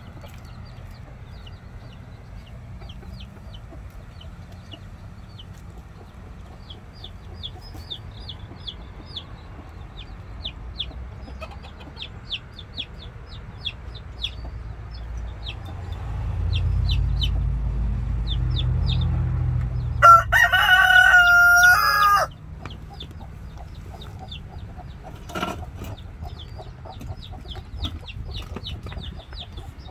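Baby chicks peeping over and over in short, high chirps. About two-thirds of the way through, a rooster crows once, loudly, for about two seconds, just after a low rumble.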